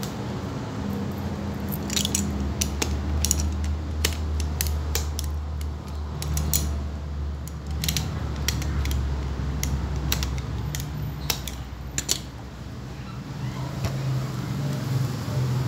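Irregular sharp clicks and light metallic clatter of pincers and a blade working the old sole loose from a shoe, over a steady low hum.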